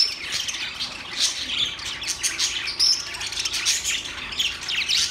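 Many small birds chirping together in a dense, continuous chatter of rapid high, overlapping chirps, with a few sharper high notes standing out now and then.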